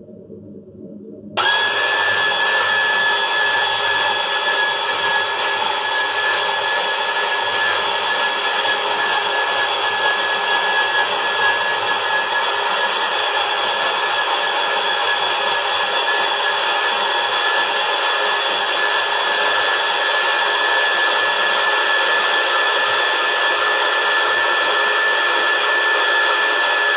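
Electric spiralizer motor switching on about a second and a half in and running steadily with a high whine as it spiralizes a courgette.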